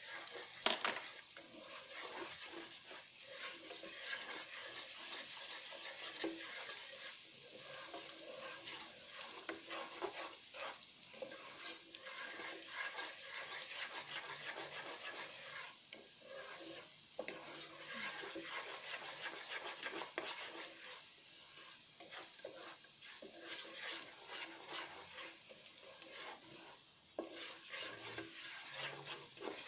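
Chopped garlic sizzling in hot olive oil while a wooden spatula stirs it. The spatula scrapes and clicks against the pan over a steady hiss.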